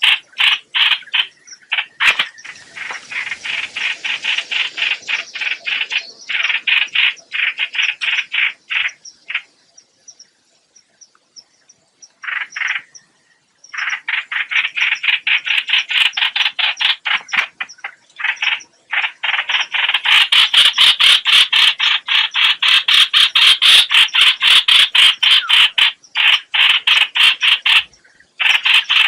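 Lure recording of the bird called hoạch hoạch in Vietnamese, giving fast runs of harsh, croaking repeated notes, about four a second, in long bouts. There is a pause of a few seconds about a third of the way through.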